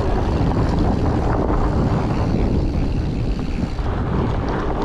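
Steady low rumble of a fat bike's 4.8-inch tyres rolling over a dirt singletrack, mixed with wind buffeting the microphone.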